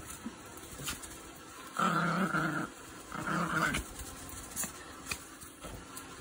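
Small dog growling twice in play, each growl under a second, while tugging and lunging at a cushion toy.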